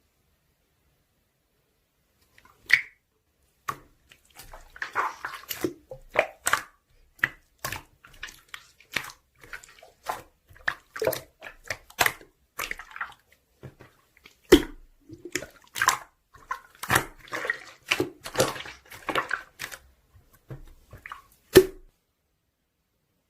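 Slime being squeezed, stretched and poked by hand, making irregular wet squelches with sharp little pops and clicks. It begins a couple of seconds in.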